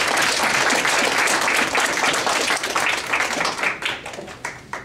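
Audience applauding: dense clapping that thins out to a few scattered claps and fades away near the end.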